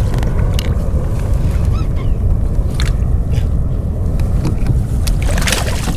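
Steady wind rumble buffeting the camera microphone on an open kayak, with a few short knocks scattered through it. The strongest knock comes about five seconds in.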